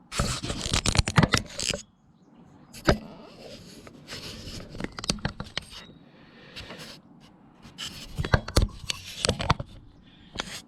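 Metal clinking, knocking and scraping from hands and tools working an ATV's front hub and control arms loose. It comes in clusters of sharp clicks: one at the start, others around four to five seconds in and around eight to nine seconds in.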